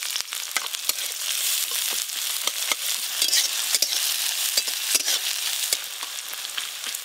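Sliced onions sizzling in hot mustard oil with dried red chillies in a metal kadai, stirred with a flat spatula that clicks and scrapes against the pan many times.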